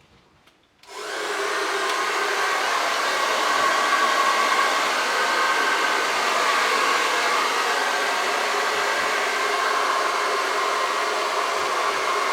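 Hair dryer switched on about a second in, running steadily with an even rushing whir, then beginning to wind down at the very end.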